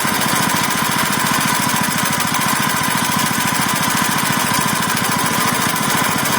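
Small 99cc single-cylinder engine running steadily on hydrogen gas fed through a valve in place of its carburetor, with a fast, even firing beat and a steady high tone over it.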